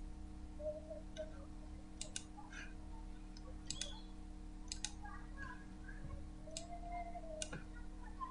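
Computer mouse clicking about half a dozen times, several clicks in quick pairs, over a faint steady hum.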